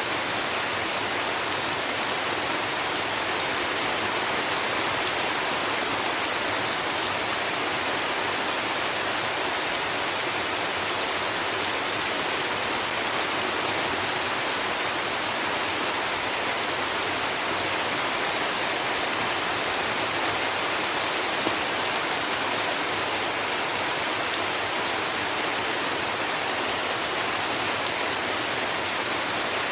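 Steady heavy rain falling, a dense even patter of drops on leaves and surfaces with no thunder.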